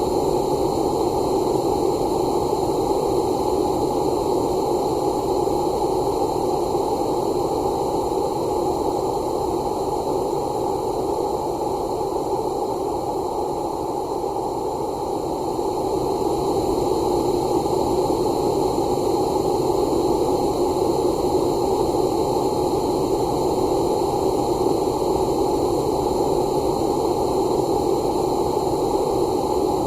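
Xiaomi phone notification sound stretched out to about two minutes long. It comes across as a steady, hiss-like drone with several faint held tones and no separate notes.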